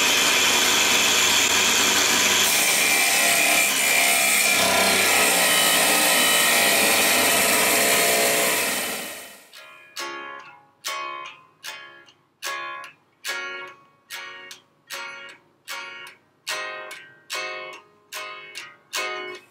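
Angle grinder with a cut-off disc running through steel, a loud steady grinding whine that fades out about nine seconds in. Then guitar music: single plucked notes in a steady, even rhythm.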